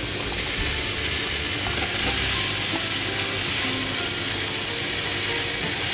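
Ground meat and shredded vegetables (carrot, enoki, komatsuna) sizzling steadily as they are stir-fried in a frying pan.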